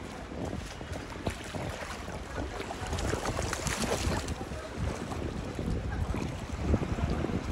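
Wind buffeting the microphone in gusts, a rough low rumble, over the wash of floodwater lapping around flooded cars.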